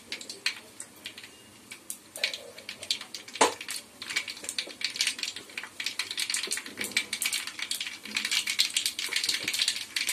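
Mustard seeds and urad dal popping and crackling in hot oil in a kadai, the tempering stage of the dish. Scattered pops at first, one sharp crack a few seconds in, growing into a dense crackle over the last few seconds.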